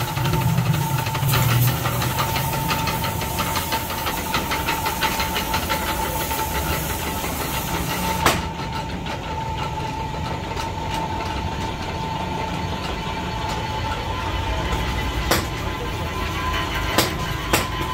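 Pillar drill press running with a steady whine while its bit cuts into the metal of a tractor gearbox housing, with rapid ticking for the first several seconds and a few sharp clicks later on.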